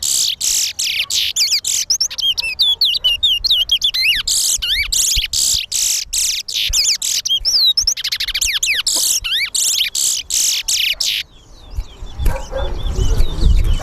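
Caged towa-towa (large-billed seed finch) singing a long, fast run of high whistled and chirping notes, the song counted in a towa-towa song race; the song stops about eleven seconds in. Low rumbling background noise rises near the end.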